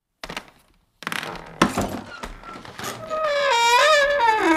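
Horror sound effects: a few sharp knocks and thuds, then a loud, wavering, eerie pitched sound like a creak or wail that slides down in pitch near the end.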